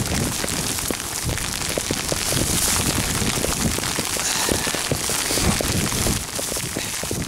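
Steady rain falling, with many sharp, close drop hits over an even hiss.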